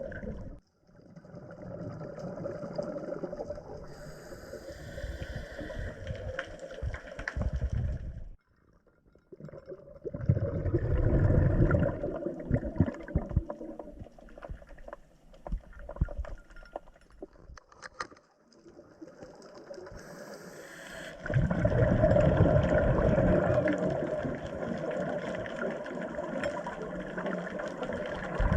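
Underwater recording of a scuba diver breathing through a regulator: long bubbling exhalations lasting several seconds, separated by short quiet pauses for the inhale.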